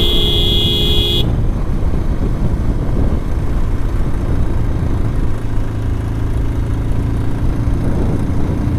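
A vehicle horn sounds for about a second at the start. Under it runs the steady low rumble of a motorcycle riding along the road.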